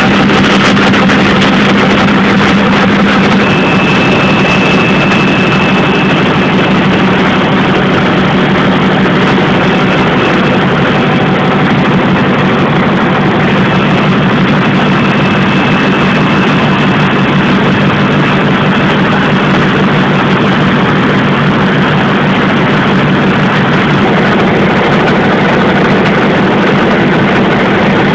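Rotary printing press running steadily at full speed, a loud continuous machine noise with a steady low hum underneath.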